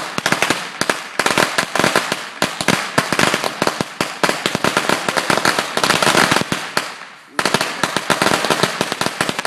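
A string of small Black Cat firecrackers going off in a rapid, continuous crackle of pops. It dies down about seven seconds in, and a second string starts popping straight after.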